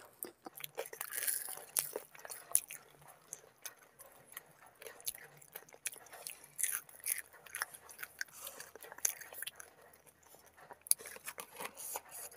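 Crunching and chewing of crisp fried samosas, close to the microphone, with irregular sharp crunches throughout.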